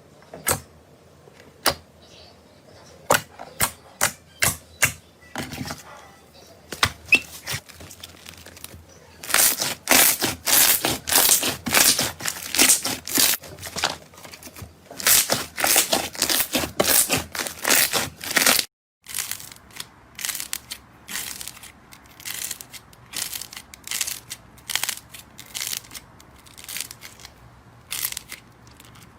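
Slime being squeezed and poked by hand, giving sharp pops and crackles: a few separate pops at first, then dense runs of crackling. A brief dead gap about two-thirds through, then softer crackling.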